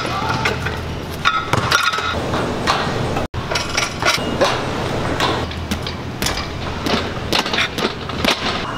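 Metal clinks and knocks from gym weight equipment in use, a cable machine and a barbell bench, coming at irregular moments over a steady low hum.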